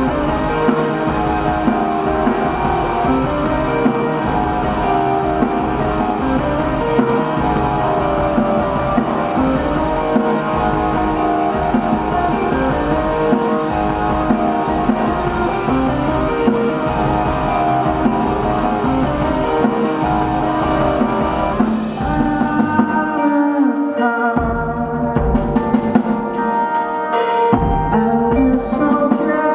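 Live rock band playing, with electric guitar and drums. About two-thirds of the way in, the full band thins to a sparser passage of held notes with occasional fuller hits.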